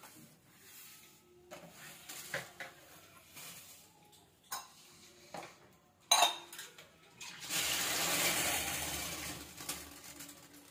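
Kitchen utensils and dishes knocking and clinking against a counter and a steel sink, with one sharp clack about six seconds in. Near the end a tap runs into the steel sink for about two seconds.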